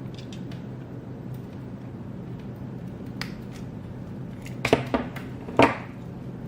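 A few small clicks and taps from jumper-wire connectors being handled and pushed onto header pins, the loudest near the end, over a steady low hum.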